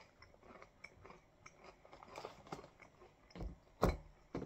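Crunchy oat granola clusters being chewed, with small crackling crunches. Near the end a metal spoon knocks twice in a glass bowl of granola and milk, breaking up the hard clusters.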